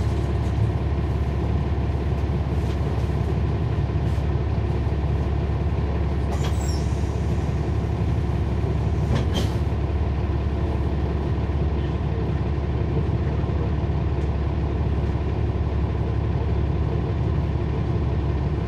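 A NABI transit bus's Cummins ISL9 diesel engine running steadily at an even speed, heard from inside the bus, with a low drone and no revving. A couple of brief sharp clicks or rattles come about six and a half seconds and nine seconds in.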